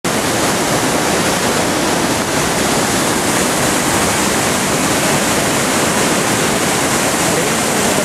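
The Rhine Falls, a large waterfall, rushing and pouring over rocks close below, a loud steady roar of water that starts abruptly.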